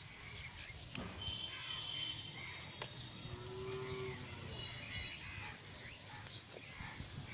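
Birds chirping repeatedly, with one short, low, steady call about halfway through and a couple of faint clicks.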